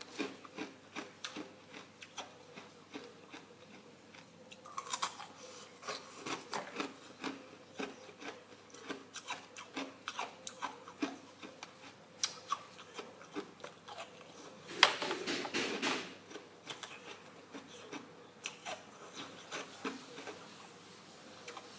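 Ice being bitten and chewed close to the microphone: a string of sharp, brittle crunches and cracks, with a louder, denser burst of crunching about two-thirds of the way through.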